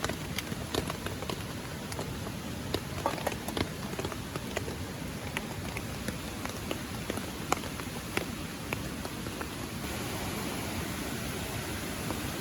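Light rain: single raindrops tick sharply and irregularly over a steady rush of water. About ten seconds in, the drop hits thin out and an even, hissing rush takes over.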